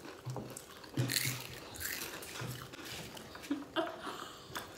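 People crunching and chewing Doritos Flamin' Hot tortilla chips: irregular crisp crunches and clicks, with no steady sound between them.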